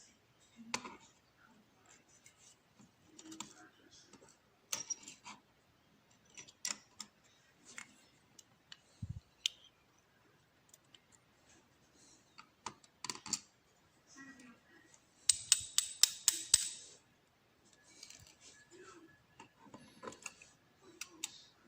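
Small metallic clicks and taps from a Ruko lock cylinder being taken apart by hand, its parts and pins coming out. About fifteen seconds in, a quick run of sharp metal clicks is the loudest part.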